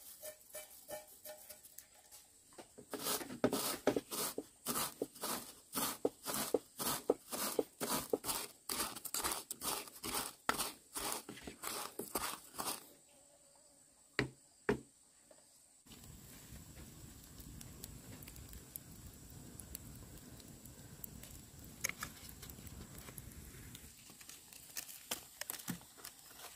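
Spice seeds being pounded with a pestle in a bamboo-tube mortar: a run of sharp, even knocks, about three a second, for roughly ten seconds. Two single knocks follow, then only a low, steady background hiss.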